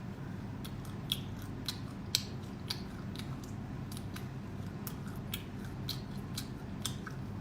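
Close-up crunching and chewing of crispy oil-fried insects, with sharp, irregular crackles coming roughly every half second.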